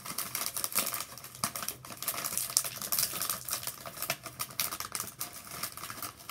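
Foil potato chip bag crinkling and crackling as it is handled and pulled open, a dense run of sharp crackles.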